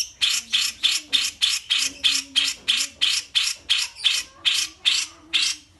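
A songbird giving a rapid series of short, harsh, raspy call notes, about three a second, evenly repeated throughout.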